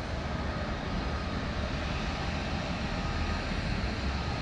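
Steady low rumble of an approaching Pacific National NR class diesel-electric freight locomotive, still some distance down the line.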